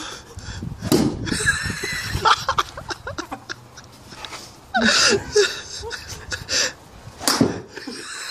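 Brief laughter and murmured voices of a few men, with a sharp crack of a golf club striking a ball about seven seconds in.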